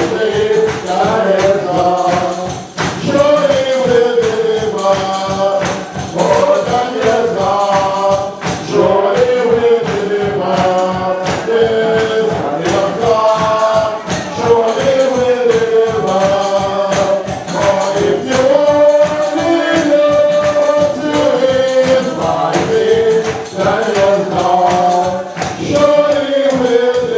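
Gospel song sung by a group of voices, with a steady, even tambourine-like percussion beat.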